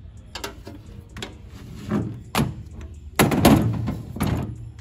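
Harbor Freight military-style .50-cal steel ammo can being pulled out and handled on a metal store shelf: a series of about six knocks and bumps, the loudest cluster a little past three seconds in.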